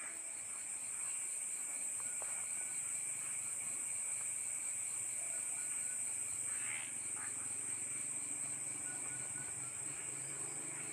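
Steady high-pitched background hiss with a faint, fast rhythmic pulsing under it, like insects chirring, and a few faint ticks.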